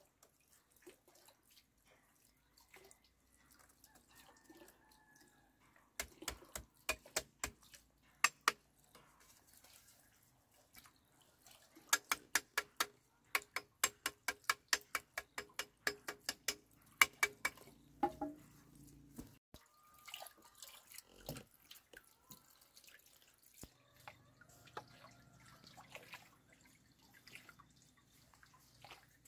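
Sharp, hollow knocks of bamboo being struck while slats and a bamboo post are worked into a woven fence panel: a short run of strikes about six seconds in, then a longer run of about twenty at roughly three a second.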